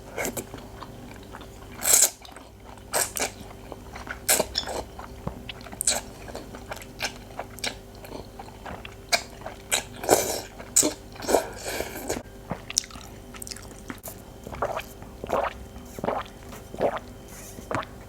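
Close-miked mouth sounds of a person eating spicy fire chicken instant noodles: irregular bites and chewing, with sharp, short wet sounds coming every half second or so.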